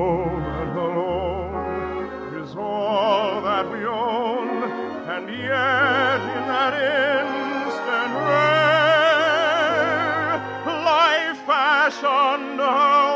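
Operatic singing over an orchestra: a trained voice holds long notes with wide vibrato, climbing higher in the last few seconds.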